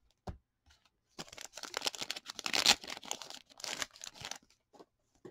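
Plastic wrapper of an O-Pee-Chee hockey card pack crinkling as the cards are slid out of its pre-clipped top, about three seconds of dense crackle. A light tap comes just before it.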